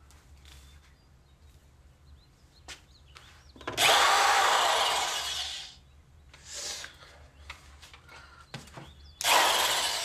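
Electric drill boring holes. A loud burst of about two seconds begins nearly four seconds in and fades as it goes, a short burst follows, and another burst starts near the end.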